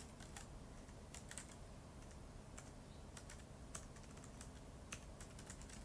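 Faint typing on a keyboard: scattered, irregular keystroke clicks with short pauses between them.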